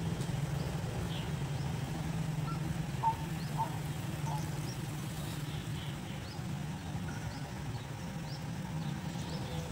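Steady low hum with faint, scattered short bird chirps over it.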